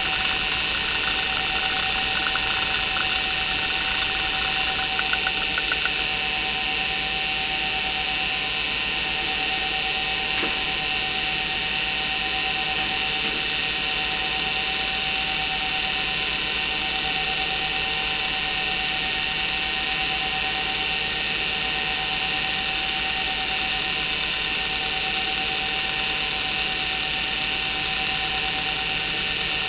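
Maxtor 8051A hard drive's heads seeking rapidly under a benchmark, a fast chatter over the spindle's steady whine, until it stops about six seconds in. After that the 3484 rpm spindle motor runs on alone with a steady whine and a rough hum from bearings that the owner says aren't very good.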